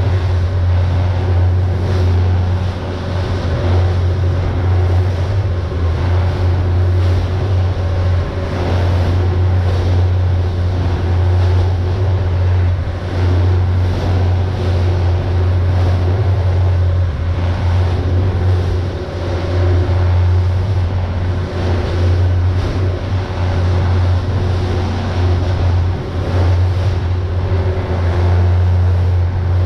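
Pilot boat under way, its engines running at a steady low drone with water rushing past the hull and now and then a faint slap.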